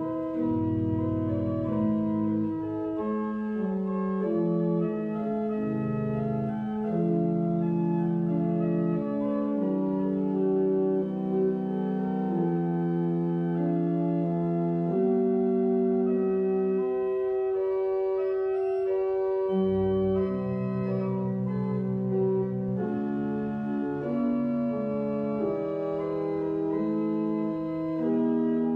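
Church pipe organ playing a postlude at the close of the service: slow, sustained chords that change every second or two.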